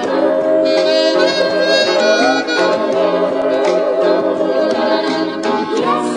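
Background music with a held, reedy melody line that sounds like harmonica over a steady accompaniment.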